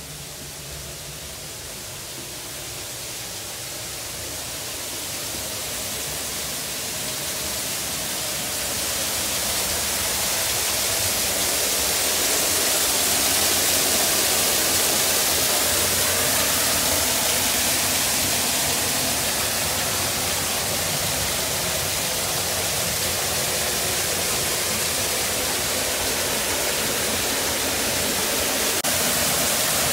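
Garden waterfall pouring as a curtain of water into a pond, heard from the rock grotto behind it: a steady rush that swells over the first ten seconds or so, then holds.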